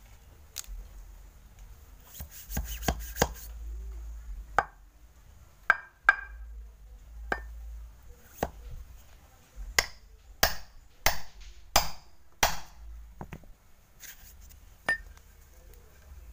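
Sharp knocks of a rod ramming soil down into a paper firecracker tube that stands on a stone slab. A quick run of knocks comes about two seconds in, then single knocks follow roughly a second apart.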